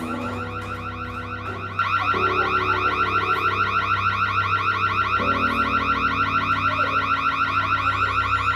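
Home security door alarm sounding: a high-pitched electronic warble that repeats several times a second without pause, getting suddenly louder about two seconds in.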